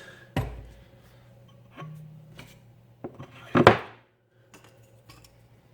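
A few knocks and clacks of hard objects against a plywood wall as a brush is hung on the screw. The loudest knock comes about three and a half seconds in.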